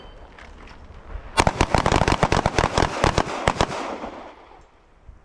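Handgun fire from several shooters on a firing line: a rapid, overlapping string of about twenty shots starting a little over a second in and stopping after about two and a half seconds.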